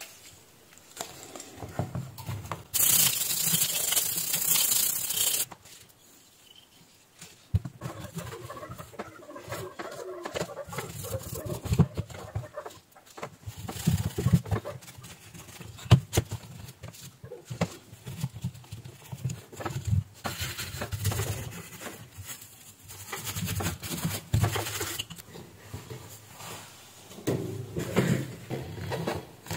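Cloth rubbing and scrubbing on a circuit board, with handling scuffs and small knocks against the bench. A loud hiss lasts about three seconds near the start.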